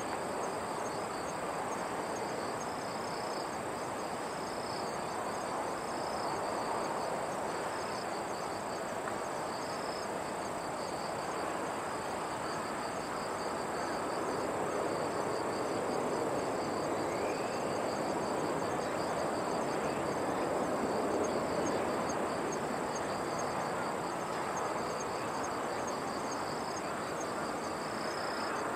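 Insects calling steadily: a continuous high trill with a pulsing chirp beneath it, over a steady outdoor background rush that swells a little in the middle.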